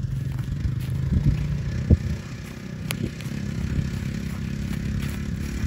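A vehicle engine running steadily with a low hum, with a few short sharp clicks and knocks over it.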